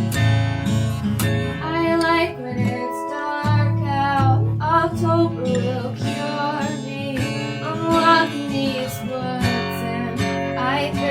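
Acoustic guitar strummed in steady chords, with a woman singing a song cover over it from about a second and a half in, her voice wavering in pitch on held notes.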